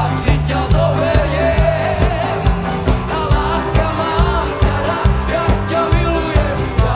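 Live band playing an upbeat song with electric guitars, bass and a strong steady beat, tambourines shaken along, and a male voice singing the melody.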